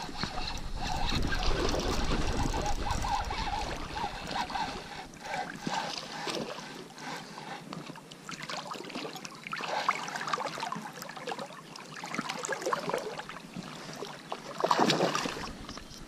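A hooked pike being reeled in on a spinning rod: irregular water splashing with handling noise from the reel and boat, with sharper, louder splashes about ten seconds in and near the end.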